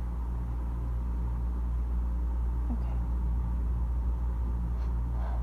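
Steady low hum made of several even tones, with a couple of faint brief sounds about three and five seconds in.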